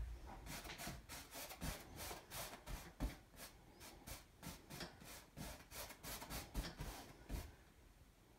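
A paintbrush scrubbing a thin paint wash onto a stretched canvas in quick, irregular short strokes, a faint scratchy rubbing, while the shadows of the underpainting are blocked in. A soft low knock comes right at the start.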